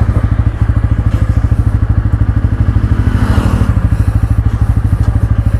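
Bajaj Pulsar N160's single-cylinder engine running at low, steady revs, its exhaust beats coming evenly at about a dozen a second.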